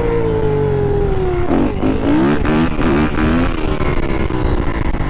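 Yamaha dirt bike engine held on the throttle through a wheelie, its pitch sagging slowly, then a quick run of throttle blips about halfway through before it settles back into a steady, slowly falling drone.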